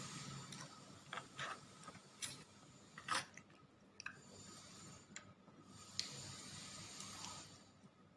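Quiet eating noises: scattered short clicks and taps of chewing and utensils, the loudest about three seconds in, over a faint hiss.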